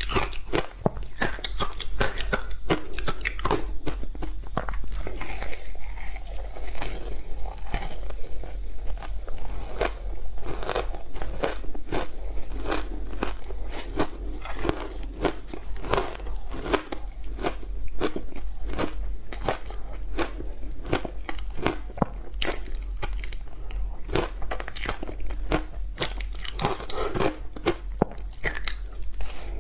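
Close-up crunching and chewing of hard frozen matcha tea ice blocks coated in sweet potato powder: bite after bite of sharp cracks in quick succession, with grinding chews between them.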